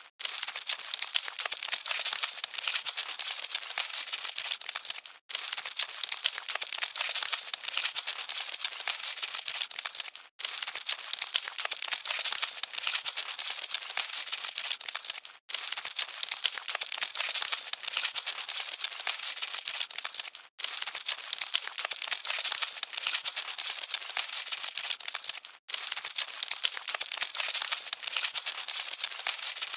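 Cockroaches scuttling: dense, dry crackling and rustling, with no low sounds in it. It cuts out for a split second about every five seconds, as the same short recording loops.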